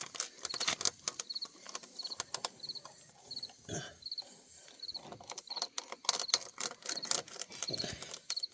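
T-handle tyre reamer being twisted and pushed through a tyre puncture, scraping and clicking irregularly as it cuts through the tyre's steel belt wires.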